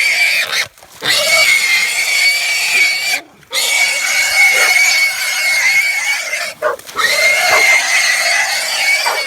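A hog squealing loudly in long, steady, high-pitched screams, broken three times by short pauses for breath.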